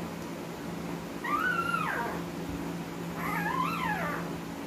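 One-week-old husky puppy whining: two high, mewing cries, each rising then falling and about a second long, over a steady low hum.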